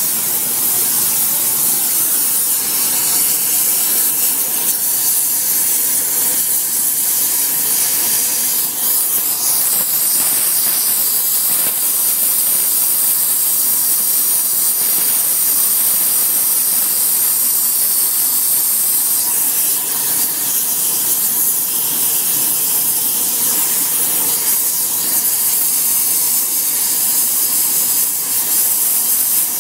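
Hand-held gas flame torch hissing steadily while it heats the edge of a steel cane-sugar shredder hammer for brazing with a flexible hardfacing cord.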